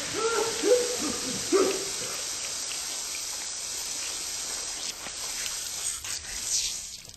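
Steady hissing spray of blood gushing from a severed neck, a film sound effect. A voice is briefly heard over it in the first two seconds.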